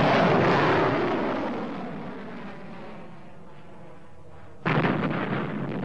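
Soviet-made surface-to-air missile launching: the rocket motor's roar fades over about two seconds as the missile climbs away. A second sudden blast follows about four and a half seconds in.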